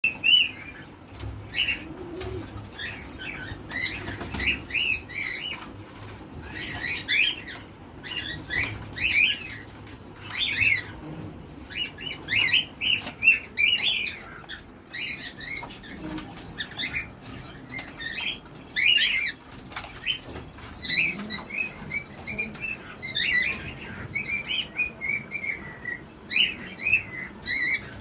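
Pigeons flapping their wings, with many rapid, high chirps throughout.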